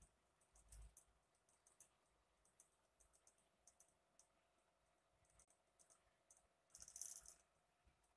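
Near silence with faint scattered clicks and a brief, slightly louder rustle about seven seconds in.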